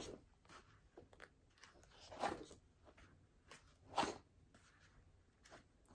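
Paper pages rustling faintly as printed curriculum sheets are handled and leafed through, in a few short scattered bursts, the loudest about two and four seconds in.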